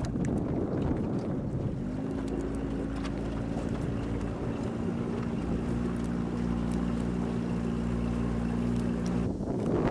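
Small boat's outboard motor running at a steady pitch, with wind buffeting the microphone. The engine note comes up clearly about two seconds in and cuts off just before the end.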